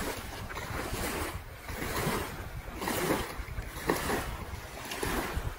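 Small waves washing up and breaking on a sandy lake beach, the sound swelling and ebbing, with wind rumbling on the microphone.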